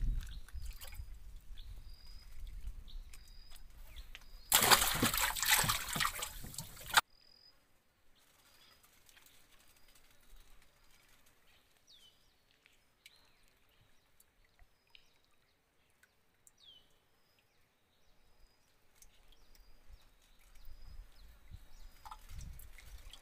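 Water splashing and trickling around a small wooden boat, loudest for about two seconds before stopping abruptly. Then it falls quiet, with faint high chirps repeating about once a second and a couple of short downward-sliding calls.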